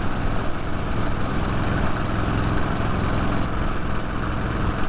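Pre-1919 vintage motorcycle engine running steadily at road speed, with a steady rushing noise over it.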